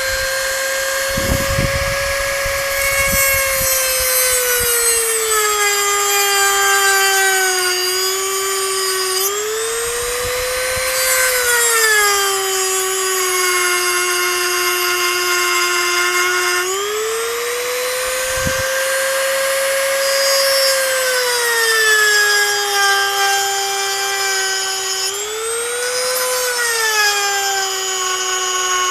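Dremel rotary tool with a cut-off wheel cutting into a camera's lens housing: a steady high whine that sags in pitch several times as the tool bogs under load, then climbs back when eased off. The cut-off wheel is wearing down fast as it cuts.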